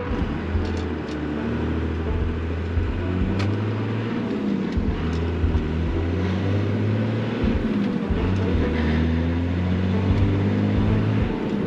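The 1997 Dodge Ram 2500's 12-valve Cummins 5.9 diesel running under way, a steady low drone that shifts in pitch as the truck is driven.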